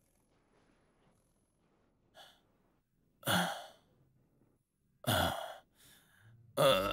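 A man's heavy, pained breathing: two loud sighing exhales about two seconds apart, then the start of a groan near the end as low music comes in.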